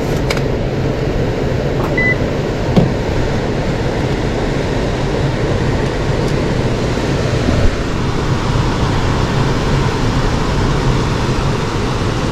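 Furnace ECM blower motor running steadily with a steady rush of air through the air handler, after simply being plugged back in: the motor that was called bad works fine. A short single beep sounds about two seconds in.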